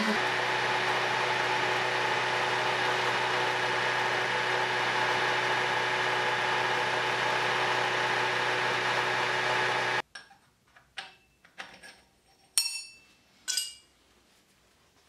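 Vertical knee milling machine running with its end mill in the cut, a steady machine noise with fixed tones, which cuts off suddenly about ten seconds in. After it come several light metallic clinks of small steel parts handled on a workbench, the loudest about two and a half seconds after the cut-off.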